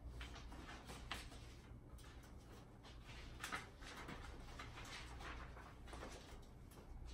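Quiet room with faint rustles and light taps from sheet music and instruments being handled at music stands, no playing; the loudest rustle comes about three and a half seconds in.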